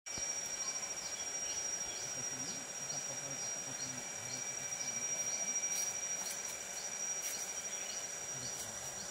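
Forest insects: a steady high-pitched whine with a short falling chirp repeating about twice a second. A few sharp clicks come in the second half.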